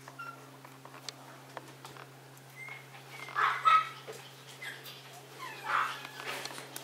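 Maltese puppy giving short, high-pitched barks while being played with by hand: a pair of them about halfway through and another shortly before the end.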